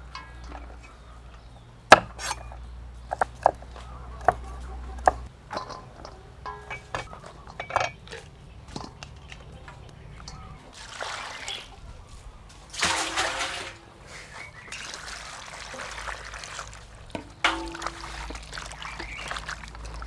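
Long beans snapped by hand into pieces, a series of sharp cracks with the loudest about two seconds in. From about eleven seconds, vegetables washed by hand in a bowl of water, splashing and sloshing.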